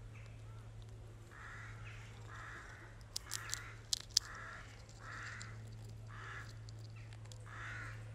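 A crow cawing over and over, one harsh caw about every second, with a few sharp clicks loudest a little before the middle.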